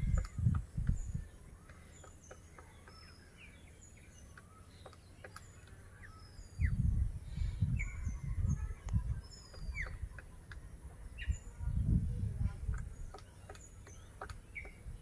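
Bursts of low thudding knocks from a great slaty woodpecker hammering out a nest hole in a tree branch, coming in spells with pauses, under many small birds chirping with short high downslurred notes.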